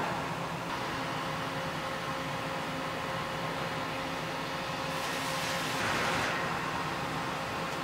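CNC machining center running with a steady hum and whine. About five seconds in, a rushing hiss swells for about a second and a half and falls back as a long twist drill bores into a clamped metal block under coolant mist.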